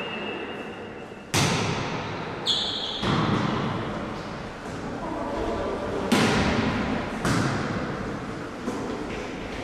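Volleyball being struck during a rally: sharp slaps on the ball, a loud one about a second in and another about six seconds in, with softer hits between, each ringing on in the echo of a gymnasium hall. A brief high squeak comes about two and a half seconds in.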